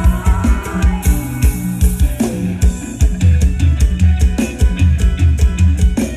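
Band music through a large PA sound system: a drum kit with busy cymbal strikes and kick drum over a steady bass line, played loud without vocals.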